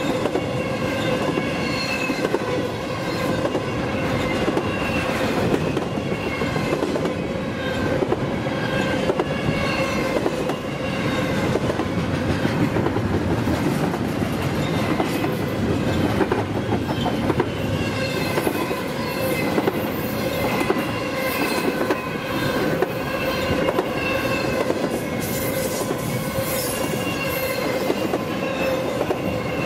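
Intermodal freight train's cars rolling steadily past, wheels clicking over rail joints with repeated wavering squeals from the wheels on the rail.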